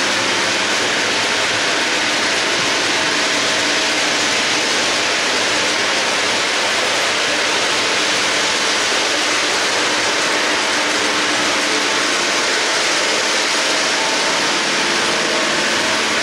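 Steady rushing rumble of an O-gauge model freight train of double-stack cars rolling over tubular three-rail track, its many metal wheels running on the rails.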